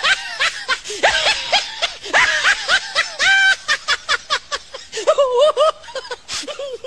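High-pitched, squeaky laughter-like calls in quick runs, each rising and falling in pitch, with short pauses between runs.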